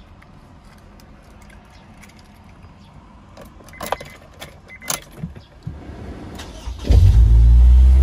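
A few clicks and rattles, then near the end the 2008 Honda S2000 (AP2) Type S's 2.2-litre four-cylinder engine starts at once and settles into a loud, steady cold-start fast idle through its J's Racing aftermarket exhaust.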